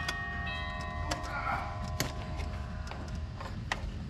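Soft soundtrack music with held chords that fade out about a second and a half in, over a steady low rumble. A few sharp clicks and knocks of hand tools on engine parts come roughly a second apart.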